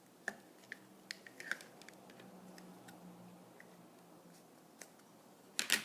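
Small plastic clicks and taps from Play-Doh tools and containers being handled while dough is worked: a few scattered ticks through the first couple of seconds, a lone tap later, and a louder quick cluster of clacks near the end.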